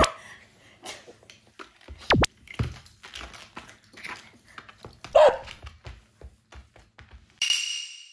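Mame-shiba puppy squirming in someone's arms and giving a few sharp yelps in protest at having its nails trimmed, with rustling and scrabbling in between. Near the end comes a short, noisy added sound effect.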